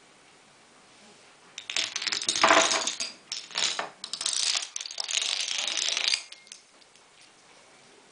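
Chain of painted wooden dominoes and bear-shaped wooden blocks toppling one after another: a dense rapid clatter of wood on wood that starts about a second and a half in, dips briefly twice, and stops about six seconds in.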